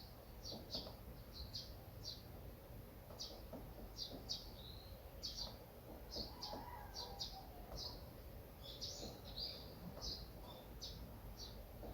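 Small birds chirping: short high chirps, about two a second at an uneven pace, over a low steady rumble.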